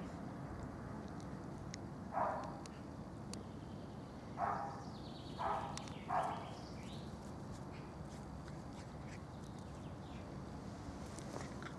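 Puppies almost six weeks old yapping in play: four short yaps, one about two seconds in and three close together around five seconds in.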